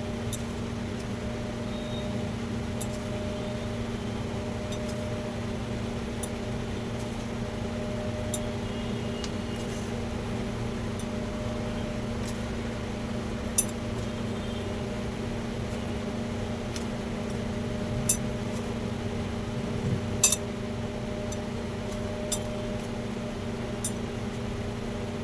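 Steady low electrical hum with a few short, sharp clinks, a few seconds apart, of hands and fingers knocking a bowl while soaked poha is mashed by hand into a dough.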